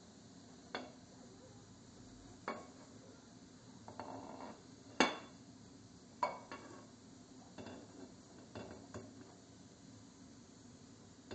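Dishes and cutlery being handled: scattered clinks and clatters, about ten in all, the loudest about five seconds in.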